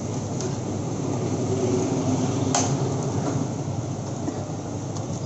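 Steady street traffic rumble with three short sharp clicks, the loudest about halfway through.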